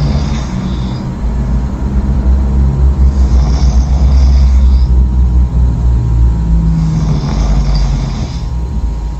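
A person snoring loudly: deep, low rumbling snores, each with a breathy hiss, coming about every three and a half seconds.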